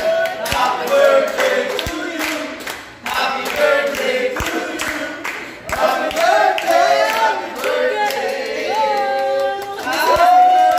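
A group of restaurant staff singing a birthday song together, clapping along.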